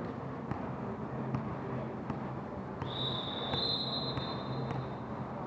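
A shrill referee's whistle starts abruptly about three seconds in and is held for nearly two seconds: the signal that lets the server serve. Under it is the steady hum of a large gym hall, with a few faint thuds.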